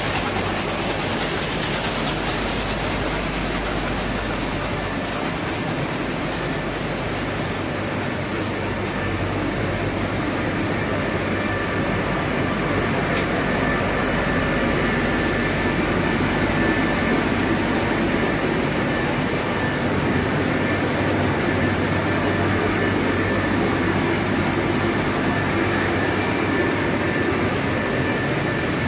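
Woollen carding and spinning machinery in a carpet-yarn mill running steadily: a dense, even mechanical noise with a low hum and a faint thin high whine.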